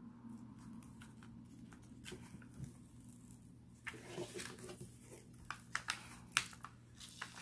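Plastic protective film on a diamond painting canvas being picked at and peeled back from the glued drill area: quiet crinkling and rustling with scattered light ticks, a little louder from about four seconds in.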